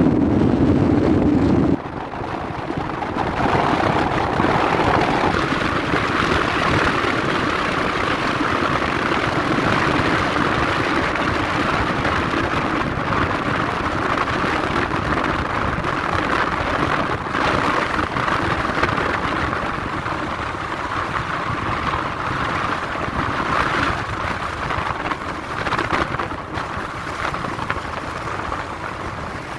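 Strong wind blowing over the sand dunes and buffeting the microphone, a loud, steady rushing hiss. A heavy low rumble drops away suddenly about two seconds in.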